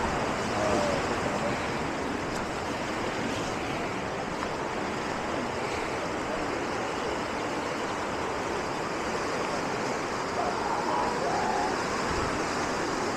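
Steady, even rush of running water with no breaks.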